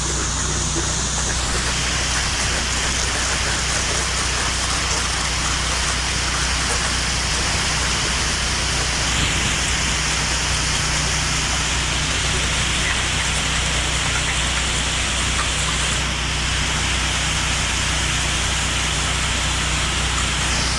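Pressure washer spraying water hard against a surface, a steady hiss of spray over the machine's engine hum. The spray's tone shifts a few times as it moves over different surfaces.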